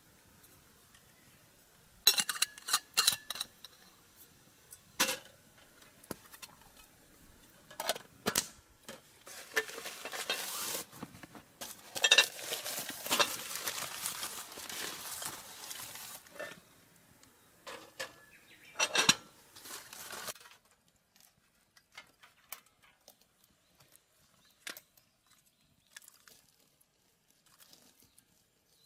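Camp cookware and utensils clinking and clattering as they are handled: a handful of sharp clinks, with several seconds of continuous noisy handling in the middle, then only faint light ticks in the last third.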